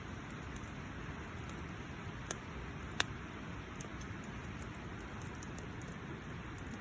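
Campfire burning with a steady hiss and small high crackles, with two sharp pops of the burning wood a little after two seconds in and about three seconds in, the second the louder.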